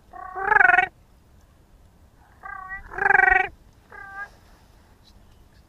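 Brant calling: rolling, guttural cronk calls, four in all. Two loud, close calls come near the start and about three seconds in, with two fainter calls around the second one.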